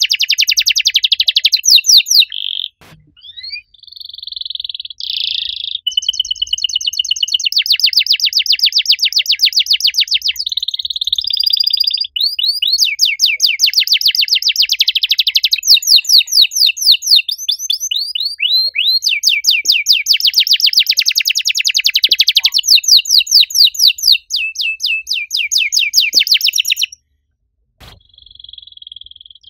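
Domestic canary singing a long song of rapid rolling trills and high chirping phrases, changing from one trill to the next, with brief pauses about three seconds in and near the end.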